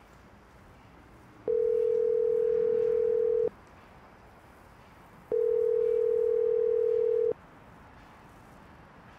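Telephone ringback tone: a steady single-pitched tone sounding twice, each about two seconds long with about two seconds between. It is the call ringing out while waiting to be answered.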